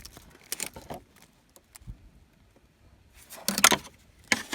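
Scattered clicks, knocks and rubbing of hands and tools working in a car's engine bay, with a louder cluster of quick clicks about three and a half seconds in.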